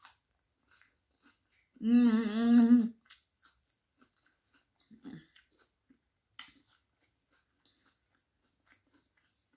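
A woman hums a wavering "mmm" of enjoyment, about a second long, with her mouth full. Around it are quiet chewing and small mouth clicks.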